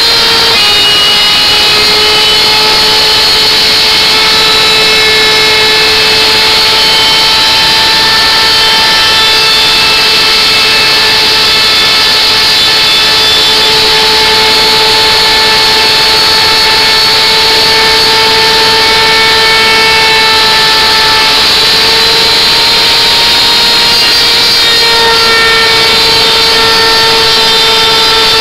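Electric wood router running and cutting a groove in a wooden board: a loud, steady high-pitched motor whine, its pitch dipping slightly about a second in.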